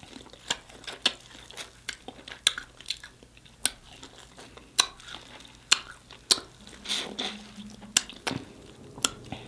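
Close-up eating of sauce-coated corn on the cob: wet chewing and lip smacking, with sharp irregular clicks and crunches as the kernels are bitten.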